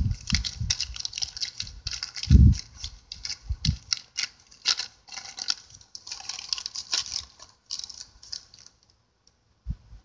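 A bag crinkling and rustling as it is handled, a dense run of irregular crackles. A few dull thumps come between, and the crackling thins out near the end.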